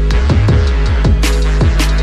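Background music with a steady deep bass and a drum beat of low, falling-pitch kicks and crisp cymbal hits.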